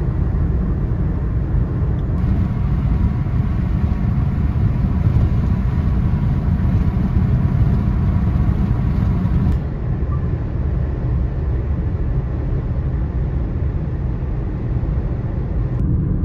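Steady low rumble of tyre and engine noise inside a car cruising on a highway. The sound dips slightly about ten seconds in.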